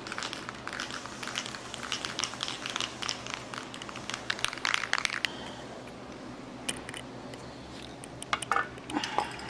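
Crinkling, crackling handling noise made of many small clicks for about five seconds, then a few scattered clicks near the end.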